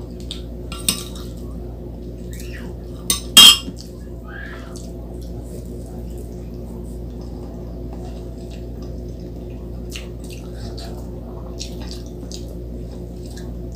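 A metal spoon clinks against a dish: a light tap about a second in and a louder clatter about three seconds in. This is followed by close-up eating sounds, with small wet mouth clicks over a steady low hum.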